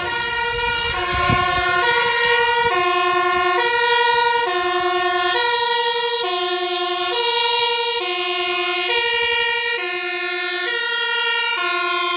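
Fire engine's two-tone siren, a high and a low note alternating evenly, each held just under a second, as the engine approaches.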